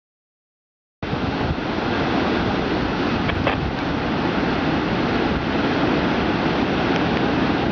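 Large waves breaking in heavy surf, a steady noisy rush with wind buffeting the microphone; it starts abruptly about a second in after total silence.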